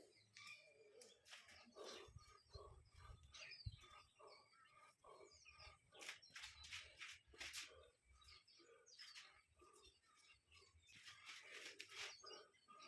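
Faint bird chirps, many short calls, with scattered quiet clicks and rustles.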